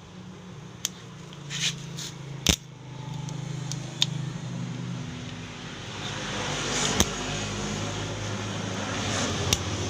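Homemade welding machine humming, with several sharp snaps and a crackling hiss that builds from about halfway in, as the arc strikes and runs on thin sheet metal.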